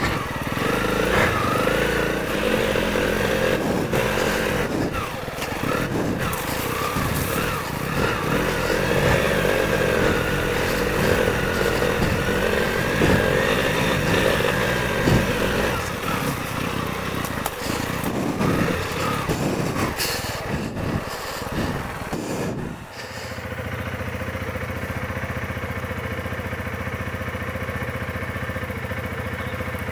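Honda CRF300 Rally's single-cylinder engine running at low speed on a rough dirt trail, its revs rising and falling, with knocks and rattles from the bumps. About 23 seconds in the sound changes abruptly to a steadier, lower engine drone.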